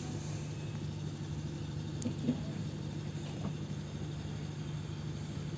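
Steady low hum with a couple of faint knocks about two seconds in.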